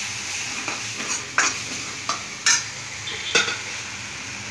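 Tomatoes and a freshly added ground spice paste sizzling in a kadai while a steel ladle stirs them, with three sharp clinks of the ladle against the pan.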